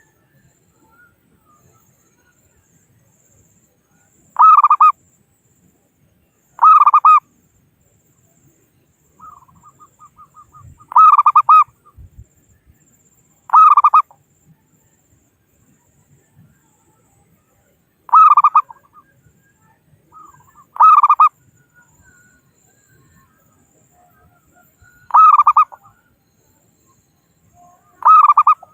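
Zebra dove (perkutut) cooing: eight loud, short phrases repeated every two to four seconds, a couple of them led in by a run of soft, quick notes. These are the local perkutut's calls used as a lure to draw in rival doves.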